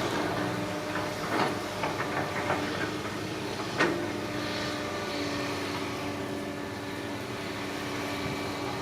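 Excavator engine running steadily, with a series of clanks and knocks in the first four seconds, the loudest about four seconds in.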